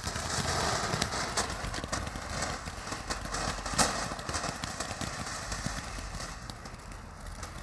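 A lit firework burning on the ground, hissing and crackling with many small pops, strongest in the first second or so. There is one sharper crack about four seconds in, then it gradually dies down.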